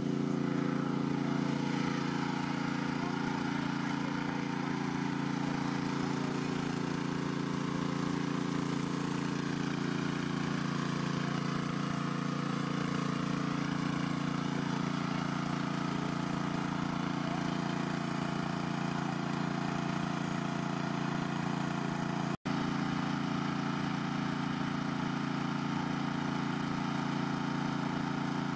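Small engine of a portable water pump running steadily at a constant speed, with one momentary dropout about three-quarters of the way through.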